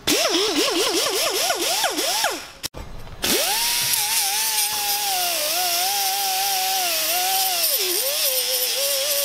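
Pneumatic die grinder with a small abrasive disc working a metal bracket. It is first blipped in a quick series of rising whines, then after a short break about three seconds in it is held on in a steady high whine over a hiss of air. Its pitch sags and wavers as the disc is pressed into the metal, the tool slowing for lack of air pressure.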